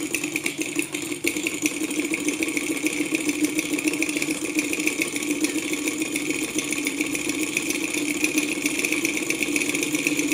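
Small twin-piston Stirling engine with a propeller running at speed: a steady, fast mechanical whir with a rapid rattle of pulses.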